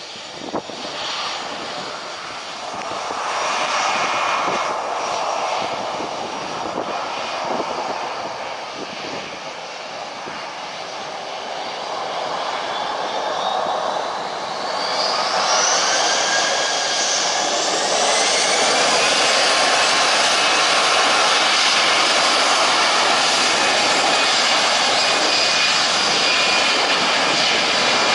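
Airliner's jet engines spooling up for takeoff: about halfway through, a set of whines climbs in pitch, then the engines settle into a loud, steady takeoff-thrust noise.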